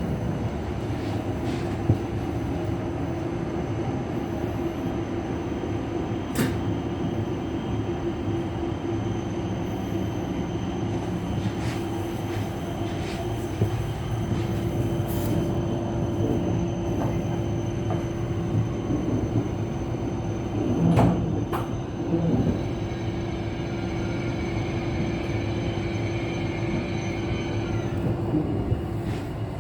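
Hokuriku Shinkansen train running, a steady rumble with a constant hum and a thin high whine, and a few short clicks along the way.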